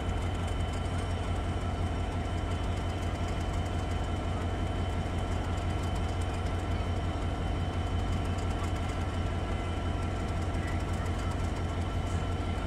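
Class 37 diesel-electric locomotive's English Electric V12 engine idling: a steady low rumble with a faint steady high whistle over it.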